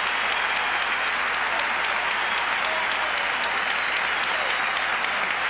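Large theatre audience applauding steadily at the end of a song.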